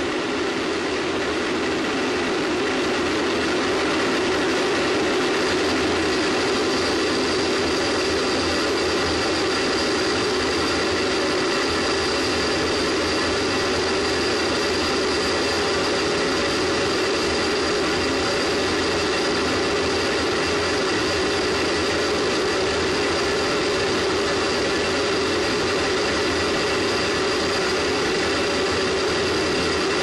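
Space Shuttle solid rocket booster in powered ascent, heard from a microphone on the booster: a loud, steady roar of rocket thrust with a high, constant whine running through it.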